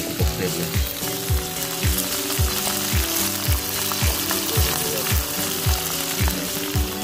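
Music with a steady beat of deep, falling kick-drum thumps, about two or three a second, over held tones, mixed with the steady hiss of food sizzling in hot frying oil.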